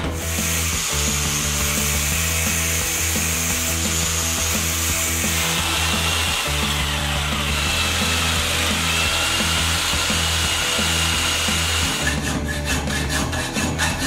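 Electric jigsaw cutting through a metal hex nut held in a vise: a steady rasping cut with a high whine. About twelve seconds in it gives way to quick back-and-forth rasping strokes of a hand tool on the metal.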